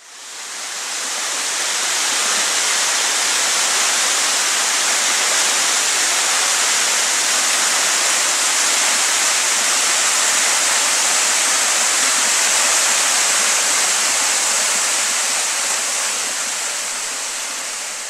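A tall waterfall falling vertically about 42 metres, its water making a steady, loud rushing hiss. It fades in over the first couple of seconds and eases off near the end.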